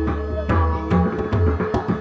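Marathi bhajan accompaniment: tabla strokes, with deep bass beats and sharp strikes, keep a steady rhythm under sustained harmonium-like notes.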